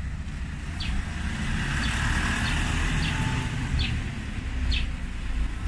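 A car driving slowly up and pulling in, its engine and tyres a low steady rumble. Faint short high chirps come about once a second.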